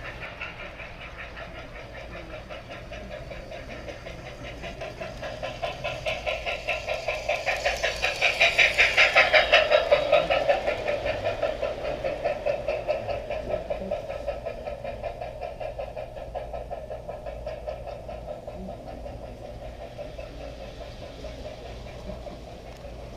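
G-scale model steam locomotive and passenger cars running along the garden track: a rapid, even clatter that grows louder about eight to ten seconds in and then fades away.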